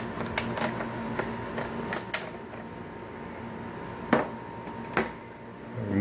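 Plastic snap-fit clips of an Asus TP500L laptop's bottom cover clicking as they release while the cover is pried off. There is a quick string of light clicks in the first two seconds, then two louder snaps about four and five seconds in.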